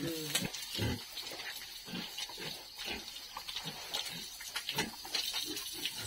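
Pigs grunting in short, irregular grunts while water from a hose splashes onto the pen floor with a steady hiss. A short squeal trails off right at the start.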